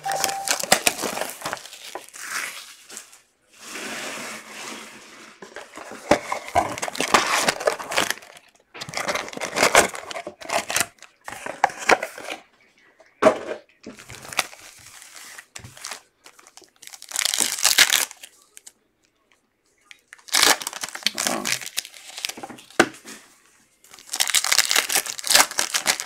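Foil wrappers of Panini Contender football card packs being torn open and crumpled: repeated bursts of crinkling and tearing with short pauses between them.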